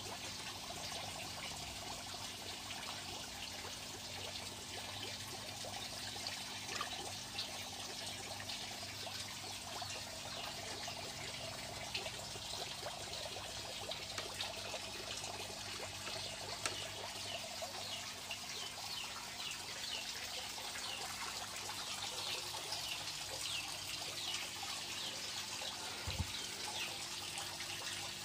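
Water trickling and bubbling steadily in a shallow tarpaulin crayfish tank, with a faint steady hum underneath and a soft low knock near the end.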